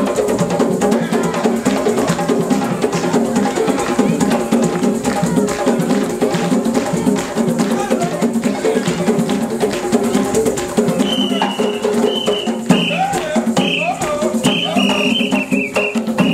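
Live ensemble of African hand drums playing a steady, dense rhythm. A run of short high-pitched notes cuts through the drumming in the last few seconds.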